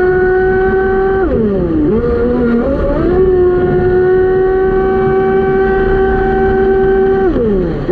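Electric motor drive of an RC speedboat on a 6S LiPo, whining at high throttle over the rush of water along the hull. About a second in, the pitch falls as the throttle eases, then climbs back to a steady high whine, and near the end it falls again.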